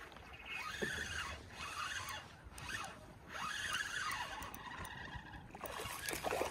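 Spinning reel whirring in several surges of a second or so as its handle is cranked and line is retrieved.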